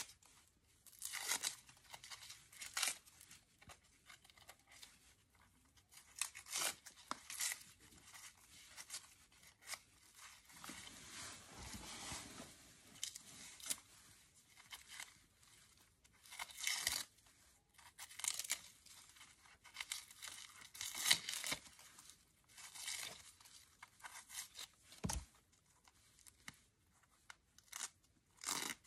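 Dry, papery outer scales of a double amaryllis bulb being peeled and torn off by hand: irregular crackling, rustling tears that come and go, with one short low knock near the end.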